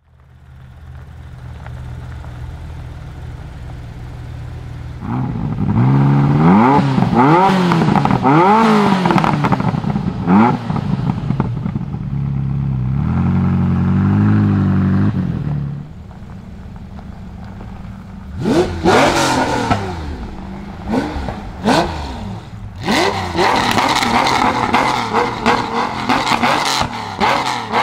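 Modified Ferrari F40's twin-turbo V8 idling, then revved several times, with rises and falls in pitch, before settling into a held higher idle. After that a Pagani Zonda C12 S's Mercedes-AMG V12 is blipped in short, sharp revs that rise and drop quickly.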